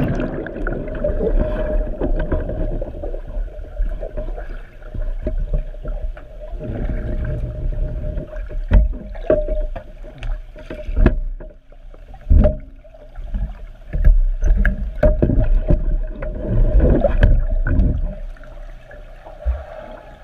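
Muffled water sound heard underwater in a pool: bubbling and sloshing with a low rumble and a steady hum, broken by scattered sharp knocks as the capsized training seat and harness are worked.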